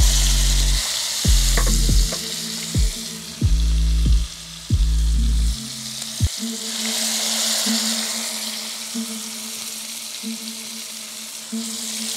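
Marinated chicken drumsticks sizzling as they shallow-fry in hot oil and butter in a pan. The sizzle swells a little after the middle as another piece goes in. Background music with a steady beat runs underneath for about the first half.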